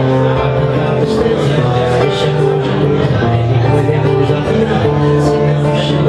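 Acoustic guitar played live, steady strummed and picked chords of a song.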